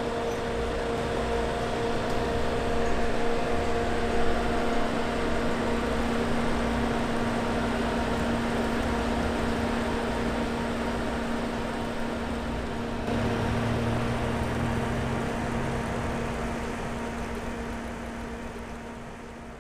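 Fans and cooling units on refrigerated truck trailers running with a steady hum and whir, fading out near the end.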